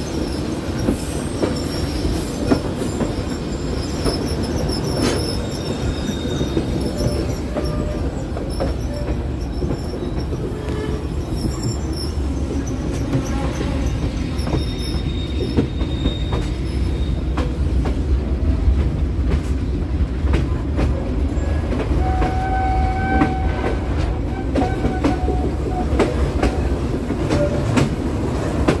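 Passenger train coaches running around tight mountain curves: a steady wheel-and-rail rumble with scattered clicks. Thin squealing tones from the wheel flanges rub against the rail on the curves and come and go: briefly a few seconds in, again midway, and lower-pitched near the end.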